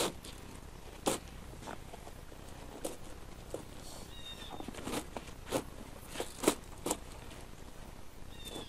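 Super Z tire chain being pulled and worked by hand around a truck tire: scattered clinks and clicks of the chain every second or so, with rustling between them.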